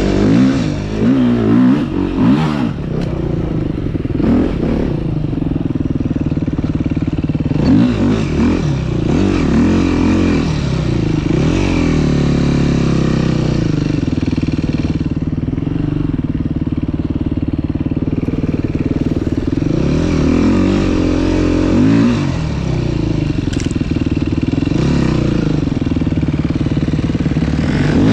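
Dirt bike engine heard from on the bike, running steadily with its pitch rising and falling several times as the throttle is opened and closed.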